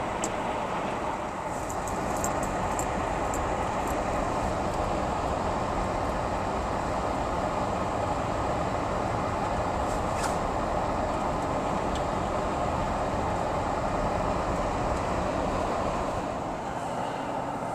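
Steady road and tyre noise of a car driving, with a handful of short sharp clicks about two to four seconds in and once more around ten seconds in.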